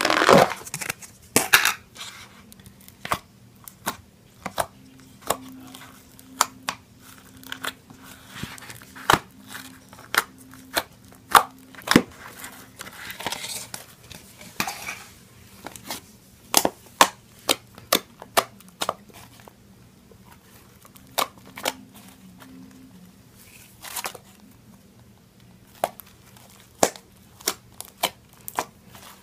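Blue glitter slime being poked, pressed and pulled by hand, making irregular sharp pops and crackles.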